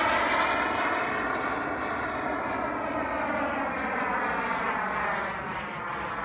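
JetCat P250-Pro-S model jet turbine running at power in a large RC jet, a steady jet roar whose pitch drifts up slightly and then slowly falls, easing off a little toward the end.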